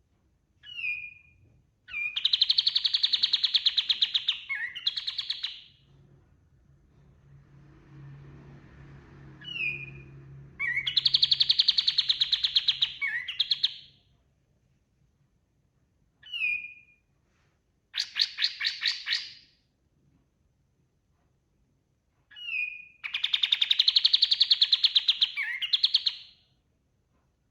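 Kapas tembak songbird singing: short high whistled notes, each leading into a long, fast, rattling trill lasting two to four seconds. The phrase comes four times, with quiet pauses between.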